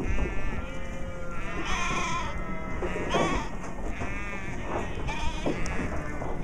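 Sheep bleating, several calls overlapping from different animals, the loudest about two and three seconds in.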